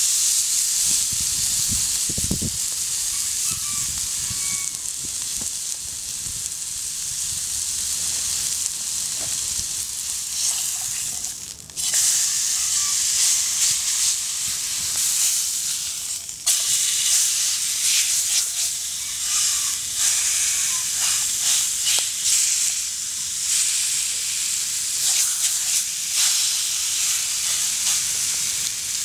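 Beef steak sizzling in a hot frying pan over a wood fire, a steady high frying hiss. About twelve seconds in it drops away briefly and comes back louder.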